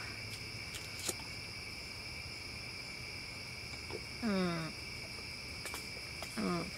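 Steady chorus of crickets, a continuous high trill in several even bands. About a second in there is a sharp click, and twice, about four and six seconds in, a short low falling voice sound rises above the chorus.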